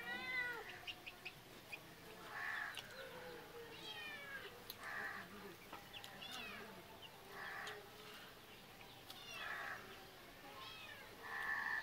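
Short animal calls repeating every second or two, some sliding down in pitch.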